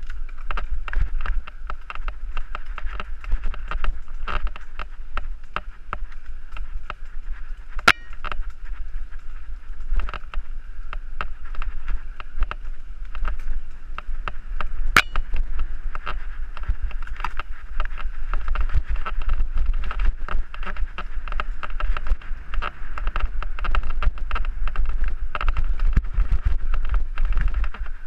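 Helmet-camera sound of a mountain bike ride on a dirt trail: wind buffeting the microphone, with a constant rattle and clatter of the bike and camera over the bumps. Two sharper clicks stand out, one about a third of the way in and one about halfway.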